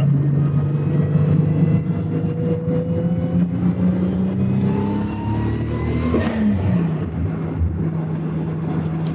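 Turbocharged VR6 engine of a VW Golf 3, heard from inside the cabin, pulling under acceleration with its pitch rising slowly. About six seconds in, the pitch drops sharply at a gear change with a brief rush of noise, and the engine then pulls on steadily.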